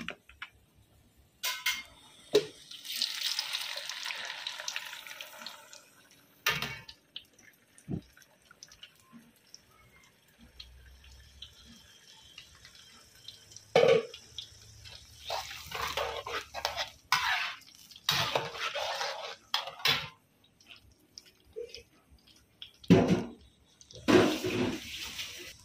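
Chili paste frying in hot oil in a wok, a hissing sizzle for several seconds near the start, then a metal spatula scraping and knocking against the wok in a run of short strokes as the paste is stirred.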